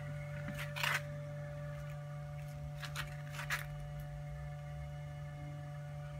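Steady low electrical hum with a fainter higher whine above it, broken by a few short clicks and rustles about one, three and three and a half seconds in.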